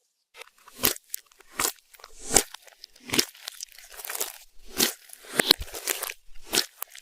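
Slime being pressed and kneaded by hand with eyeshadow and glitter mixed in. It makes crackly, crunchy squishes about once or twice a second.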